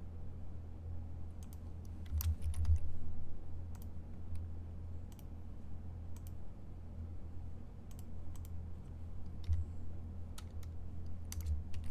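Irregular clicking of keys on a computer keyboard, a scattered run of taps with a denser cluster about two to three seconds in, over a steady low hum.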